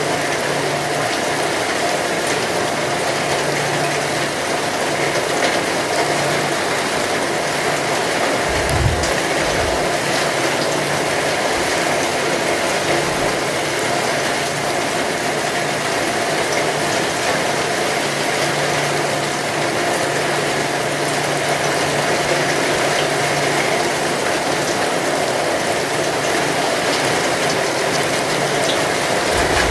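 Heavy rain falling steadily, a dense even hiss, with a brief low rumble about nine seconds in.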